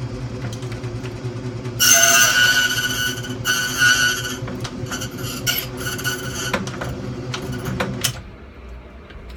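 Key-duplicating machine running with a steady motor hum. Its cutter bites into a key blank with a loud, high-pitched metallic whine about two seconds in, again briefly around three and a half seconds in, and then lightly a few more times. The motor is switched off about eight seconds in.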